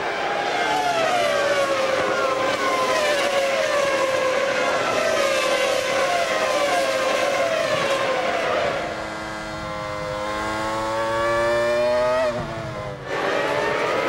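Formula One V10 engines at racing speed: several cars go by one after another for the first eight seconds or so, each engine note dropping in pitch as it passes. Then a single engine climbs steadily in pitch as it accelerates, cut off sharply near the end before the engine sound picks up again.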